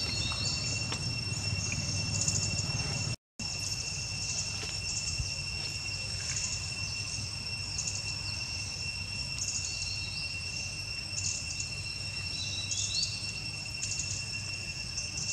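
Steady high-pitched drone of forest insects, two even tones held without a break, with a few short bird chirps over it. A low background rumble runs underneath, and the sound cuts out completely for a moment about three seconds in.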